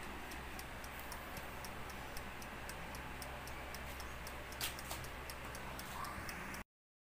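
Toaster oven's mechanical wind-up timer ticking steadily, about three to four ticks a second as it counts down the baking time, with one louder click about two-thirds of the way through; the sound cuts off suddenly just before the end.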